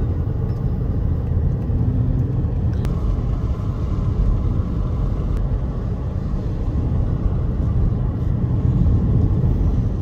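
Steady low rumble of a car driving along a road, tyre and wind noise heard from inside the car.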